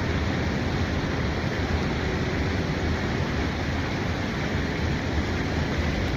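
Steady rushing of river water, an even noise with no breaks or distinct events.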